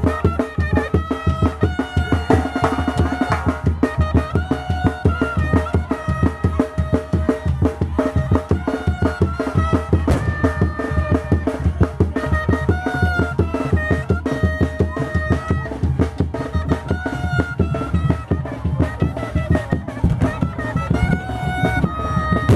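Chirimía band music: a high, wind-like melody of held notes moving in steps over steady, driving drumbeats.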